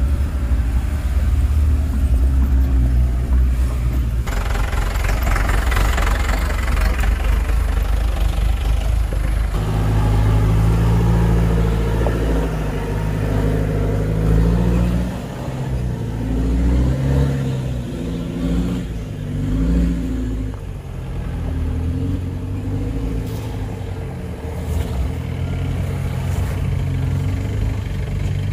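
Off-road vehicle's engine running and revving under load, its pitch stepping up and down. There is a stretch of rushing noise in the first third.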